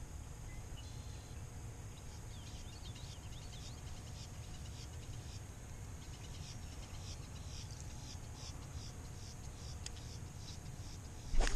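Marsh ambience: wind rumbling on the microphone under a steady high insect drone, with many short, quick bird chirps. Right at the end comes one sharp, loud knock, the loudest sound.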